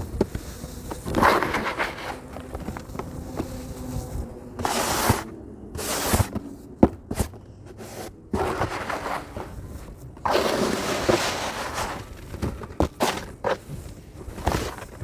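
Crunchy sand crumbling and falling into water: irregular bursts of gritty crunching and pouring, with sharp cracks between them.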